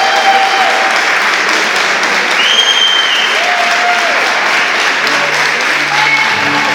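Audience applauding steadily, with a few short high calls rising over the clapping.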